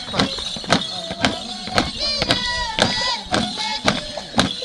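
Huaylía folk music: singing and melody over a steady percussive beat of about two strokes a second.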